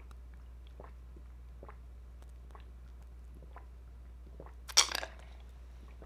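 Drinking soy milk through a straw from a paper carton: faint swallowing clicks about once a second, then one short, loud, noisy burst of mouth and breath sound about five seconds in.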